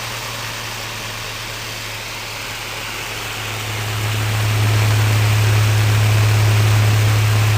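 Small desk fan with a shaded-pole motor, run on a dimmer switch at reduced speed: the motor gives a steady electrical hum under the air rush from the blades. The hum grows clearly louder about four seconds in and then holds steady.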